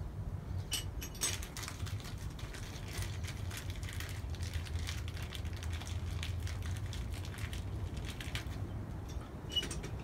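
Light, irregular clicking and tapping of small metal hardware being fitted by hand to a chrome-plated VW Beetle roof rack during assembly.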